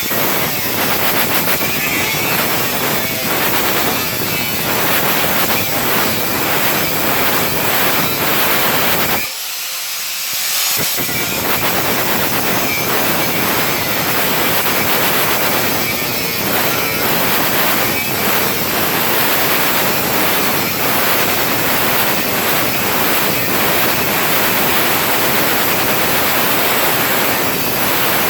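Angle grinder cutting through sheet-metal panels: a loud, harsh, continuous grinding noise. About nine seconds in it eases off for a second or two, then bites in again.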